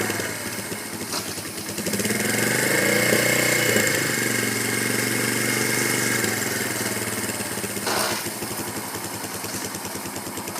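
Honda TR200 Fat Cat's single-cylinder four-stroke engine running, revving up about two seconds in and easing back down, then running steadily again. A short burst of noise comes about eight seconds in.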